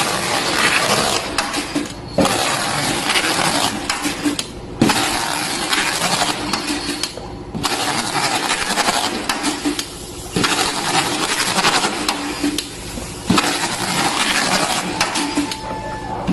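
Carton taping machine running as boxes go through one after another. It makes a dense, noisy rattle broken by brief dips about every two and a half to three seconds.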